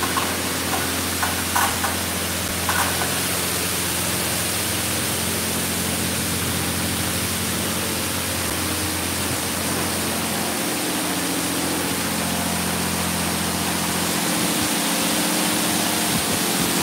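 PDQ Laserwash 4000 touchless car wash on its high-pressure pass: water jets spraying steadily onto a car, with a steady low machine hum underneath.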